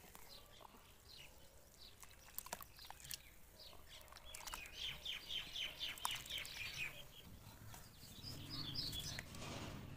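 Hands crumbling soft dirt clods and squishing them in water, with scattered small crackles and wet squelches. A small bird chirps in the background. Its quick run of high chirps, about five a second in the middle, is the loudest sound.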